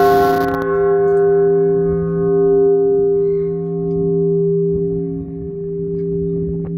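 Large bronze church bell ringing out after a clapper strike, its several tones holding on and slowly swelling and fading as it decays. It is rung as the blessing toll for Benediction with the Blessed Sacrament.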